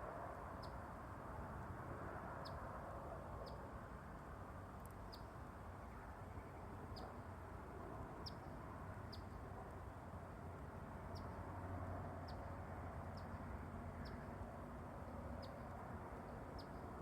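A small bird giving short, sharp, high chip notes, one about every second at an uneven pace, over a steady low outdoor rumble.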